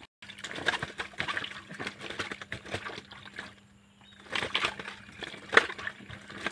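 Water sloshing and splashing in a steel bowl as hands rub and lift okra pods to wash them, with a short lull about halfway through and one sharper splash near the end.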